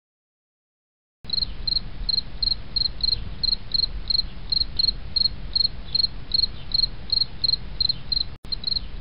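Cricket chirping in a steady, even rhythm, about three to four short chirps a second, over a low rumble. It starts about a second in and drops out for an instant near the end.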